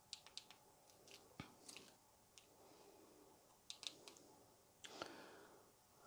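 Near silence, broken by faint, scattered small clicks and light taps, about a dozen across the few seconds.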